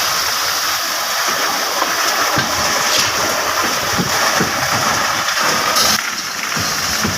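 Mercedes Actros truck-mounted concrete pump running: a loud, steady mechanical din with irregular low knocks underneath.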